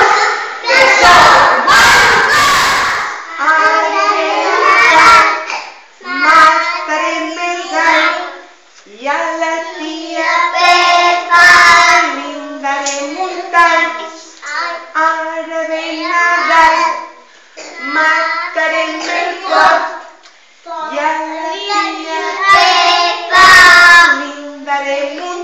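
A group of young children singing a song together in unison, in phrases separated by short pauses. The first few seconds hold a run of loud hits over the voices, and another short burst of loud hits comes near the end.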